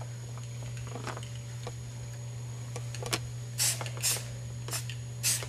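Short hisses of an aerosol spray-paint can: three quick sprays in the second half, with a few light clicks and a steady low hum underneath.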